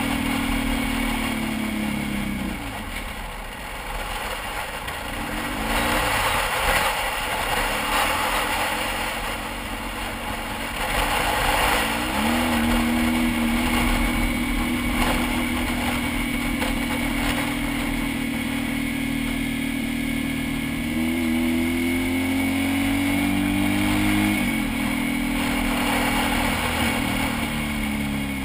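Motorcycle engine running under way, with a steady rush of wind noise. The engine pitch falls a few seconds in, climbs again, holds steady through the middle and falls again near the end as the bike slows and speeds up.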